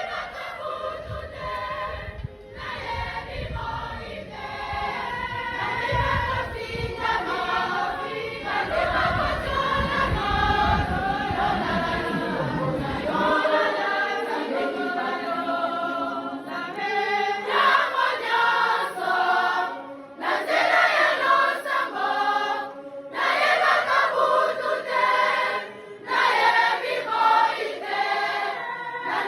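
Choir singing a hymn, many voices together with short pauses between phrases. A low rumble runs under the singing for the first half and stops abruptly about thirteen seconds in.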